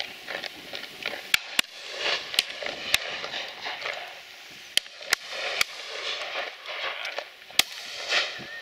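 Shotgun shots from a line of guns firing at driven partridges: about seven sharp reports, some in quick pairs.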